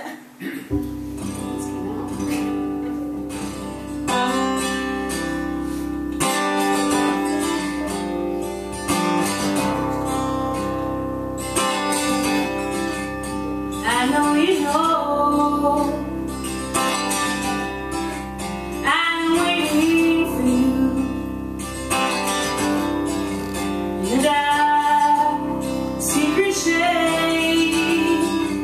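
Solo acoustic guitar strummed in steady chords, starting just after the beginning. A woman's singing voice comes in about halfway.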